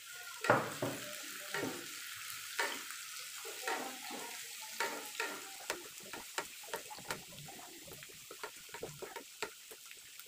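Chopped garlic, onion and chili sizzling in oil in a frying pan, with a wooden spatula scraping and tapping against the pan as it stirs. The spatula strokes come irregularly, more often in the second half.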